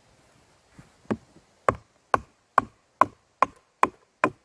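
A wedge is hammered into a large log to split it. Eight sharp, evenly spaced knocks come about two a second, each with a short ring, starting about a second in.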